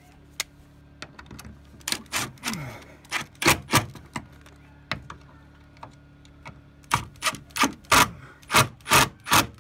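Cordless screw gun driving screws through a door hinge into the wooden jamb, in a series of short trigger bursts, one winding down in pitch after it stops.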